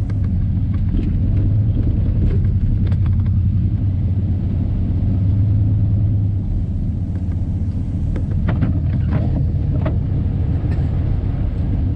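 Old Chevy pickup driving on a snowy road, heard from inside the cab: a steady low engine and road rumble, with a few faint clicks now and then.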